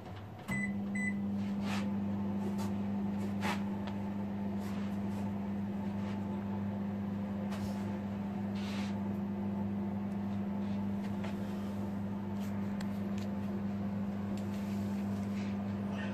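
Microwave oven switched on with two short beeps, then running with a steady low hum. A few faint clicks sound over the hum.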